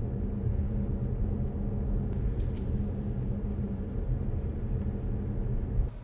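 Road and tyre rumble inside the cabin of a BYD Seal electric sedan while driving, a steady low rumble with a faint hum and no engine sound. It cuts off abruptly near the end.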